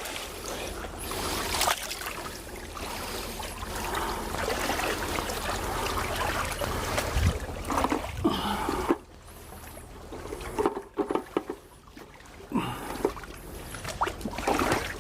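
Water trickling, a steady rush for about nine seconds that then drops away, followed by a few light knocks.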